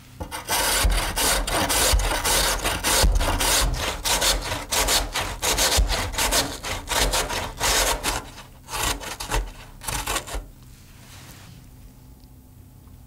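Peeled raw potato grated on a stainless steel box grater: quick, repeated scraping strokes of the potato against the metal teeth, stopping about ten and a half seconds in.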